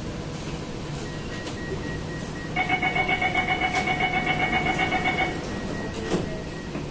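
North-East Line C851E train's door-closing warning: a rapid pulsing beep, about seven pulses a second, sounds for nearly three seconds over the carriage's steady hum, with a short knock soon after.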